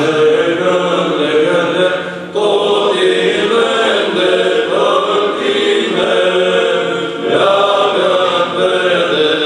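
Male choir of Orthodox priests singing a Romanian Christmas carol (colind) in harmony, held notes broken by short breaths between phrases about two and seven seconds in.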